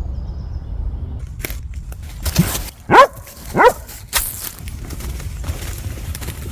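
A dog barks twice in quick succession about three seconds in, each bark sweeping sharply upward in pitch. Short rustling noises come before and after the barks, over a steady low rumble.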